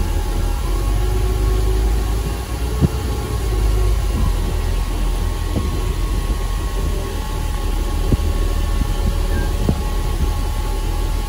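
Fire engine's diesel engine running, heard from inside the cab as the truck pulls out and turns onto the road: a steady low rumble with a few short knocks and rattles.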